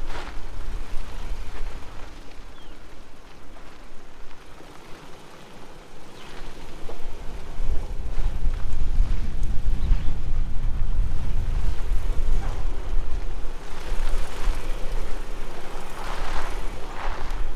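Off-road vehicle crawling over a rough, rutted, rocky dirt trail: tyres crunching on stones and gravel, with scattered knocks over bumps. A heavy low rumble builds from about eight seconds in.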